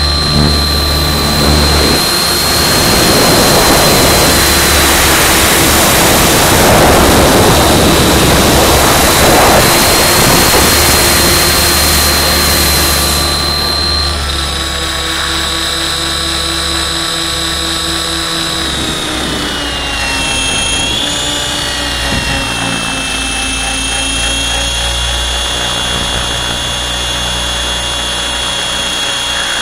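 Align T-Rex 700 radio-controlled helicopter in flight, heard from its onboard camera: a steady high whine from the drive and rotor. For the first dozen seconds a loud rush of air covers the whine while the helicopter banks. About twenty seconds in, the whine dips and wavers, then holds steady as it settles into a low hover.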